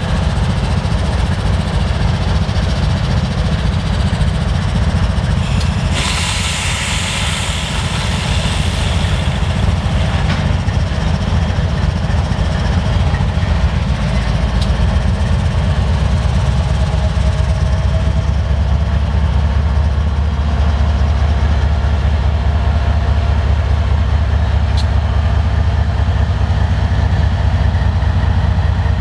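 GE ES44AC diesel locomotives of a BNSF coal train running as the train creeps slowly forward, a steady low drone that grows louder about two-thirds of the way through. About six seconds in, a burst of air hissing lasts for about three seconds.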